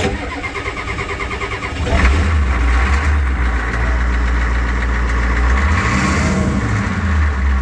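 Ford 7.3 IDI diesel V8 started after its glow-plug wait: the starter cranks rhythmically for about two seconds, then the engine catches and settles into a steady idle.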